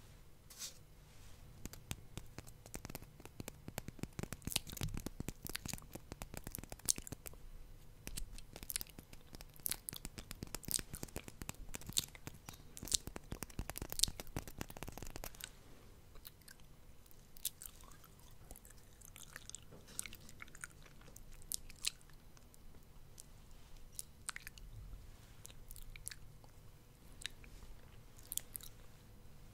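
Close-miked ASMR mouth sounds: wet lip and tongue clicks and smacks, coming thick and fast for the first half, then sparser.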